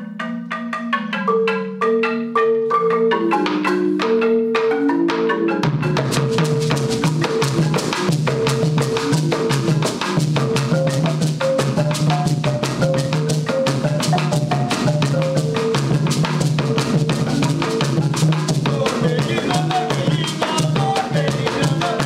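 Esmeraldas marimba music: a marimba plays a melody alone for about five and a half seconds, then drums come in with a dense, steady beat under the marimba.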